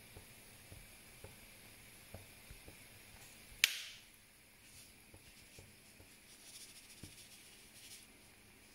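Plastic seasoning shakers being handled over a cooking pot: faint scattered ticks and taps, with one sharp click about a third of the way in.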